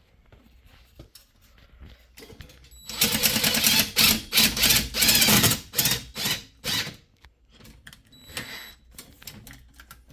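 Cordless impact driver hammering a 3/8-inch lag screw with a fender washer through an earthquake strap into the wall. It runs for about three seconds, starting about three seconds in, then gives a few short bursts as the lag is snugged down.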